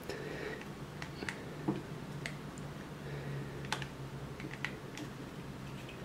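Faint, scattered small clicks of a plastic USB cable plug and USB watt meter being handled and twisted in the fingers, working a loose connection inside a faulty micro-USB cable.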